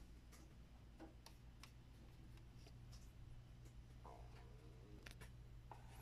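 Near silence: faint room tone with a low steady hum and a few faint, scattered clicks.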